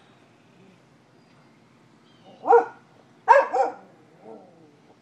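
Dog barking: one bark about halfway through, then two quick barks and a fainter one near the end.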